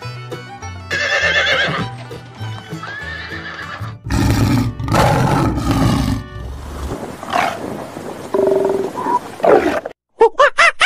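Horse neighing several times over background music, the louder, rougher call coming about four seconds in.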